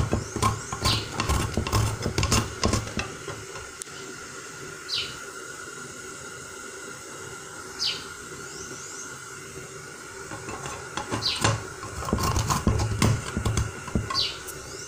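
Whole nutmeg rasped against a flat metal hand grater: quick scraping strokes in two spells, one at the start and one near the end, with a quieter stretch between. A few short high chirps sound faintly in the background.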